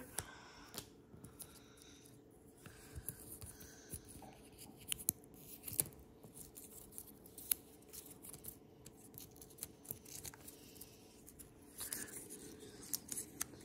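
Cardboard box and paper packaging of an iPhone charging cable being handled and unwrapped: scattered light clicks, taps and short rustles.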